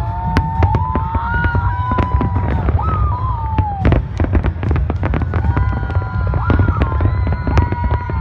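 Fireworks going off: rapid irregular bangs and crackles over a continuous low rumble, with drawn-out tones that slide up and down in pitch.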